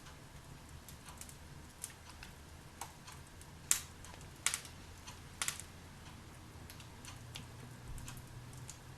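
Log fire in a fireplace crackling, with sharp irregular pops, a few louder ones near the middle, over a low steady hum.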